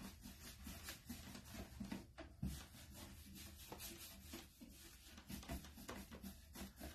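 Faint, irregular swishing strokes of a round paintbrush's bristles rubbing over a painted wooden cabinet door, blending wet chalk-style paint.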